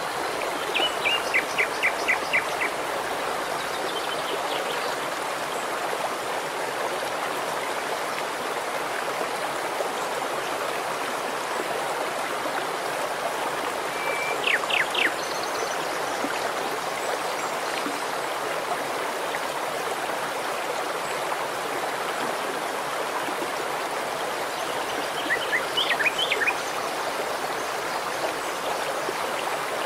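Shallow stream flowing over stones in a steady, even rush. A bird calls three times, each a short series of quick high chirps: about a second in, around the middle, and near the end.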